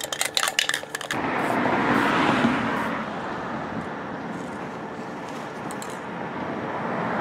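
An aerosol spray can being shaken, its ball rattling in quick clicks for about the first second, then a steady spray hiss that goes on for about six seconds and cuts off suddenly near the end.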